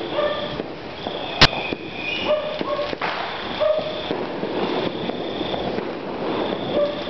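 Fireworks going off: one sharp bang about a second and a half in, over continuous distant popping and crackling.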